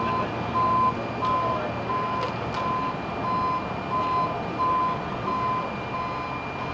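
A vehicle's backup alarm beeping steadily, one single-pitched beep about every two thirds of a second, over a steady background rumble of vehicles.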